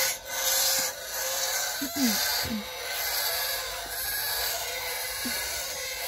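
Rough rubbing and scraping noise of a phone being handled against wood and wire mesh, with a few brief low squeaks.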